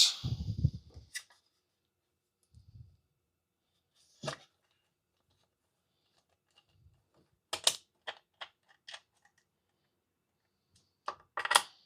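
Scattered small clicks and taps of tools and plastic parts being handled during a vacuum switch repair: a single click about four seconds in, a quick cluster of clicks around eight seconds, and two more near the end, with a few soft low bumps early on.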